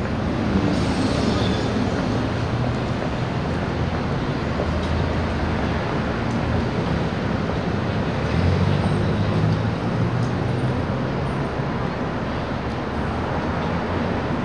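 Steady city traffic noise, with a heavier vehicle's low rumble swelling briefly about two-thirds of the way through.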